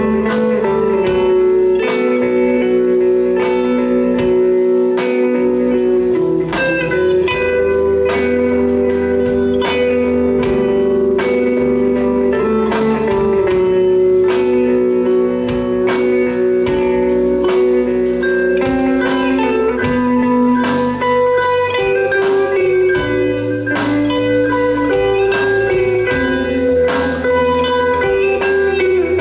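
Rock band playing live on electric guitars, bass guitar and drum kit: an instrumental passage of held guitar notes over steady drum hits, with no singing.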